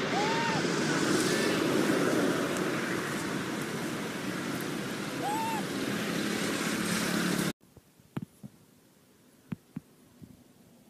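Steady rushing outdoor noise, like wind on the microphone, with two short rising-and-falling coo calls from a monkey, one at the start and one about five seconds in. The noise cuts off abruptly about seven and a half seconds in, leaving near quiet with a few soft clicks.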